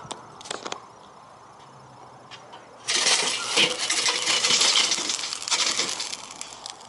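A few light clicks, then about three seconds in a sudden burst of clinking and crackling at a charcoal grill that lasts about three seconds and slowly fades.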